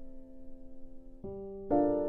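Background music: gentle piano chords. A held chord fades, then new notes come in at about a second and a quarter and a louder chord is struck near the end.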